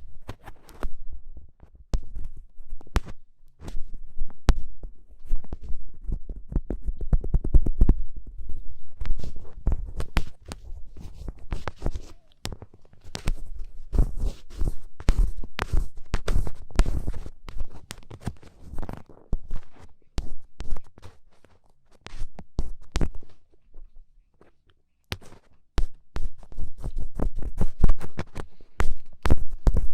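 Ear pick scraping firmly on a microphone in ear-cleaning ASMR: dense, irregular scratchy clicks over a low rumble, with a brief pause about five seconds before the end.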